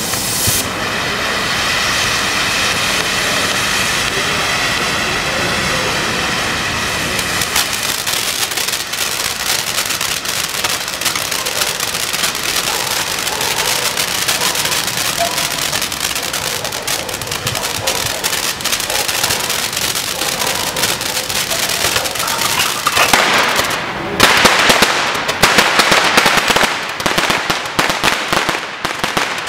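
Handheld Tomahawk roman candle firework spraying with a steady rushing hiss, which gives way about seven seconds in to dense, continuous crackling. The crackling grows louder over the last five seconds or so, as the crackling chrysanthemum finale bursts.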